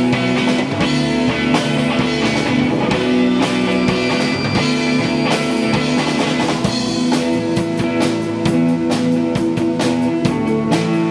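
Live indie rock band playing: electric guitar, bass guitar and drum kit, with held guitar chords over a steady drum beat. The drum and cymbal hits get busier about seven seconds in.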